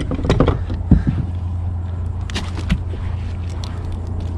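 Handling noises as a sheepshead is worked by hand in a mesh landing net on a kayak: a few knocks and rattles in the first three seconds, over a steady low hum.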